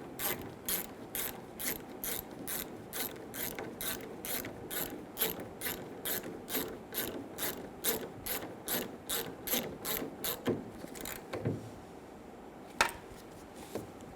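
Hand ratchet clicking steadily at about two clicks a second as it tightens an 8mm bolt that holds the door handle. The clicking stops about ten seconds in, with one more single click near the end.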